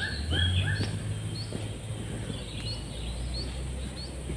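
A bird calling in a quick series of short, repeated notes, about three a second, for the first second or so, then a few scattered higher chirps, over a low steady rumble.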